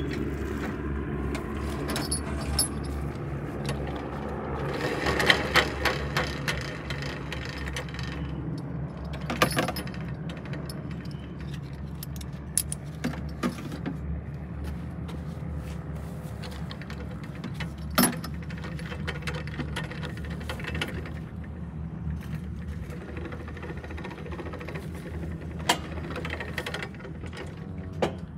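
A vehicle engine running steadily, with sharp metallic clinks and rattles every few seconds.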